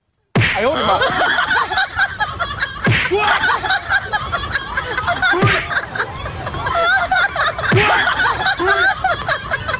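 Crowd laughter, many voices laughing and snickering at once. A sharp hit with a falling sweep repeats about every two and a half seconds.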